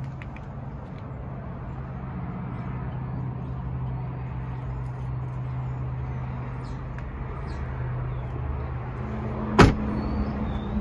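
Rear door of a 2000 Toyota 4Runner swung shut with one sharp slam about nine and a half seconds in, over a steady low hum.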